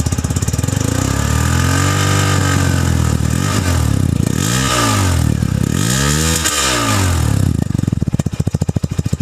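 Hero XPulse 200 4V's single-cylinder engine on its stock exhaust, idling and then revved: one slower rev that rises and falls back about a second in, then two quick throttle blips, settling back to a steady idle near the end.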